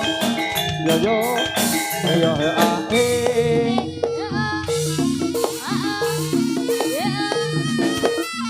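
Javanese jaranan ensemble music: a steady beat of drums under repeated metallophone-like struck notes, with a gliding melodic line weaving over them.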